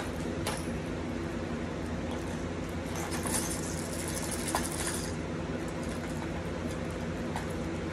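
Small clicks and rattles of fishing lures and tackle being rummaged through, thickest a few seconds in, over a steady low hum.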